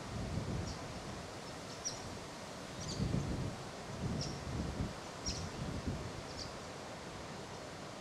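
Short, high chirps from a bird, roughly one a second, over a low wind rumble on the microphone.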